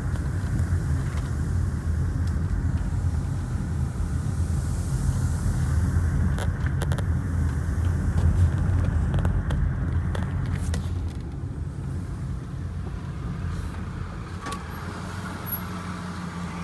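2002 Acura MDX's V6 running while the SUV is driven, a steady low rumble of engine and road noise that eases off about two-thirds of the way through as the car slows. The SUV has a failing automatic transmission that makes it weak to pull away, along with a clogged catalytic converter.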